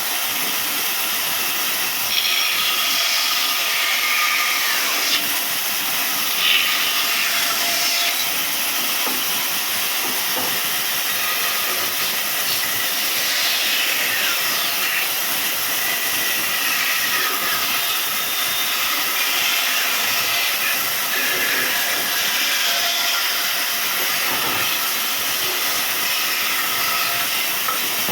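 Sawmill saw (aara machine) running through wood: a steady, high hiss that holds at the same level throughout.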